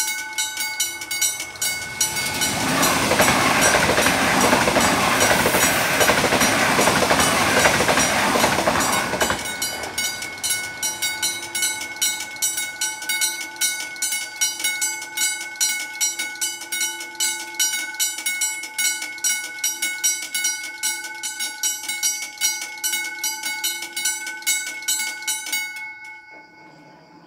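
Level-crossing warning bell ringing with rapid, evenly repeated strokes while the barriers are down. A train passes over the crossing from about two seconds in until about nine seconds in, louder than the bell. The bell stops shortly before the end, as the crossing clears.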